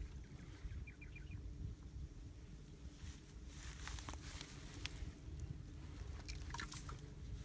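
Hands scraping and pressing damp soil around bamboo tubes set in a dug hole: soft crackles and scrapes, mostly in the second half, over a steady low rumble.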